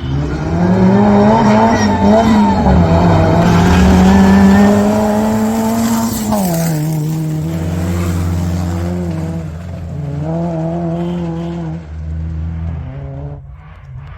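Rally car engine working hard on a gravel stage, revs climbing and falling through gear changes. It is loudest in the first half, the engine note drops sharply about six seconds in, it revs up again, and then it fades near the end.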